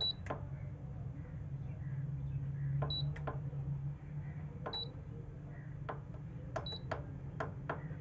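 The Humax electric tower heater's touch control panel gives a short high beep each time a button is pressed as its heating rods are switched on, four beeps in all, each with sharp button clicks. More clicks come near the end, over a low steady hum.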